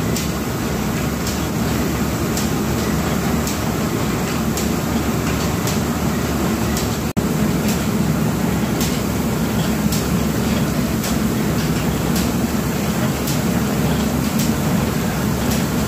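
Oil expeller pressing mustard seed, running with a steady mechanical rumble and a faint regular click about once a second.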